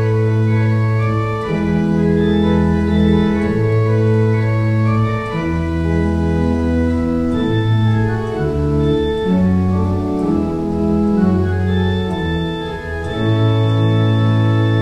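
Organ playing a slow hymn tune in sustained chords, the chords changing every second or two, with a long held final chord near the end.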